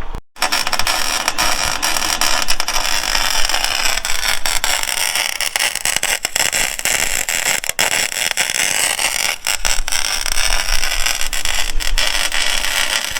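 Arc welding on steel: the welder's arc crackling and sizzling steadily, dense with fine pops, with a few brief breaks as a grille hoop is welded to the winch tray.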